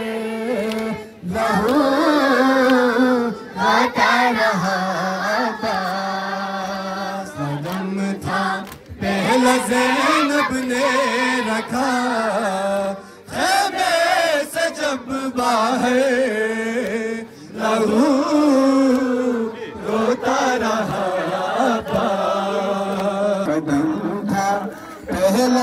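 Voices chanting a noha, a Shia mourning lament, holding long wavering notes in phrases broken by brief pauses.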